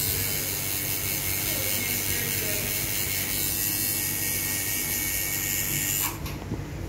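Coil tattoo machine buzzing steadily as the needle works ink into skin, cutting off about six seconds in.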